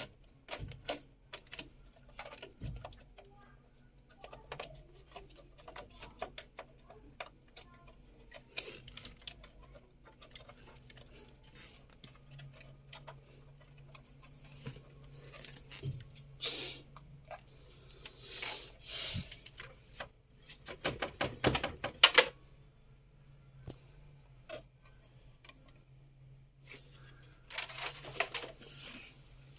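Scattered clicks, taps and rattles of computer parts being handled and fitted back into a desktop PC, with a burst of louder clatters about two-thirds of the way through. A faint steady hum runs underneath.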